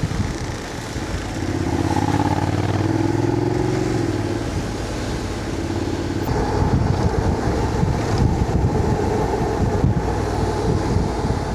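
Honda X-ADV 750 parallel-twin engine running on the move, with road and wind noise. The engine pitch rises between about one and a half and four seconds in as it accelerates.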